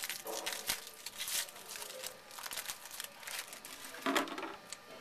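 Foil trading-card pack wrappers crinkling as packs of baseball cards are opened and the cards handled, in short crackles with a louder crinkle about four seconds in.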